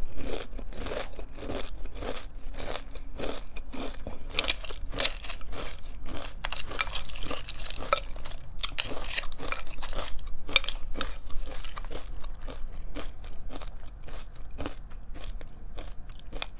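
Close-miked crunching and chewing of crunchy wheat and rice cereal flakes with clusters (pumpkin spice Special K), a steady run of crisp crunches.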